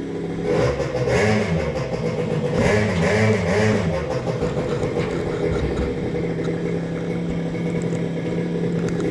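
An engine revving up and down several times, then settling to run at a steady speed, over the splashing of oil pouring into a plastic barrel.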